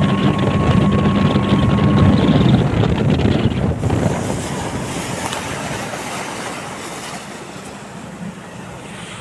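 Speedboat running on the water, engine note and the rush of water and wind loud at first; about two and a half seconds in the engine tone drops away and the rushing fades steadily as the boat slows.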